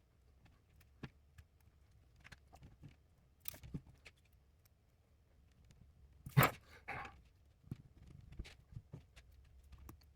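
Scattered light clicks and taps as a G-Shock watch is handled and reassembled, with one louder knock about six and a half seconds in, followed by a short scuff.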